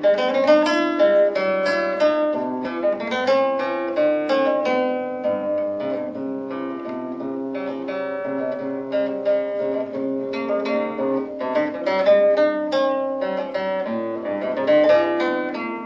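Background instrumental music: a plucked acoustic guitar playing a continuous run of quick single notes.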